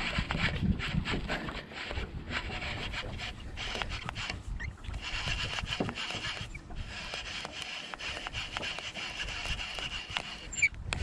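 Baitcasting reel being cranked steadily while a hooked largemouth bass is reeled in under load: a rasping whir with fine ticking from the reel's gears.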